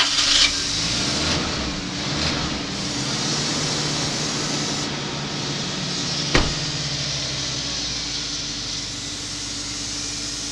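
Wood lathe running steadily with a hum and hiss, a tool cutting the spinning wood and shifting the sound in the first few seconds. A single sharp knock comes about six seconds in.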